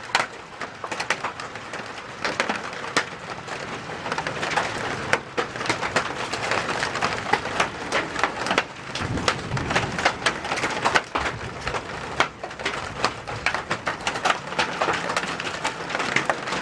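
Quarter-sized hail pelting a house: a dense, irregular clatter of sharp impacts over the steady hiss of heavy rain.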